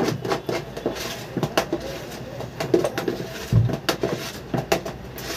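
Irregular small clicks and taps of hands handling cake decorations and toppers, with one low thump about three and a half seconds in.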